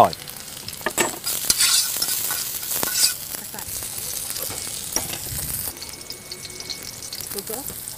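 Sliced shallots and chilli frying in oil in a wide wok-style pan, sizzling, with a few sharp knocks and scrapes of a stirring utensil. The sizzle drops away after about six seconds.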